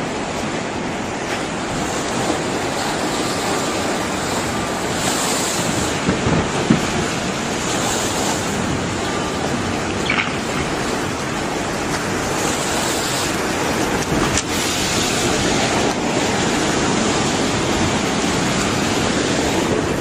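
Tsunami water surging through a harbour and over a seawall: a steady rush of churning water.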